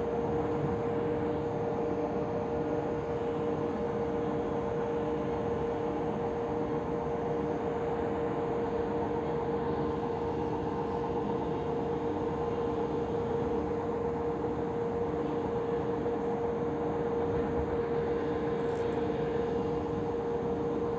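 Cabin noise of a moving electric commuter train: a steady running rumble with a constant hum tone and a fainter tone that pulses on and off regularly.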